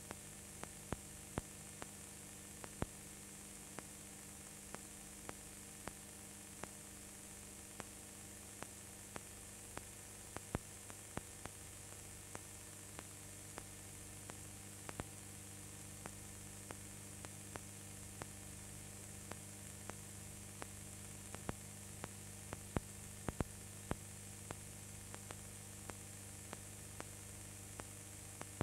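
Steady electrical mains hum with hiss on top and scattered clicks and pops, a few louder ones near the end: the background noise of an old film transfer with no live sound.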